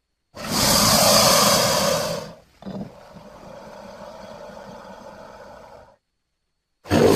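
Gharial or other crocodilian sound effect: a loud hissing roar lasting about two seconds, then after a brief break a quieter, lower growl for about three seconds. A new loud sound starts right at the end.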